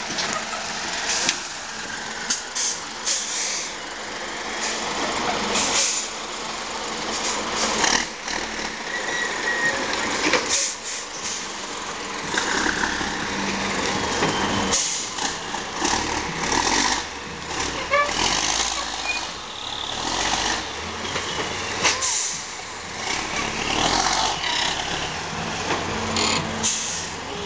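MAN 8x8 trial truck's diesel engine running under load as the truck climbs and crawls over a steep sand mound, with many short, sharp hisses and knocks scattered throughout.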